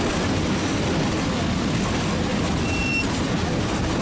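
Steady rumble of a Nilgiri Mountain Railway toy train running, with a brief high-pitched squeal or tone about three quarters of the way in.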